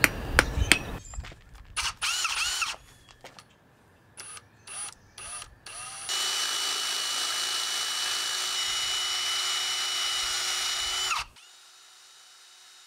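Hart cordless drill boring a hole down into a turned wooden fishing-lure body to hold a lead weight. A few sharp hammer taps come at the start, then the drill whirs up and down in short bursts and runs steadily for about five seconds before it cuts off suddenly.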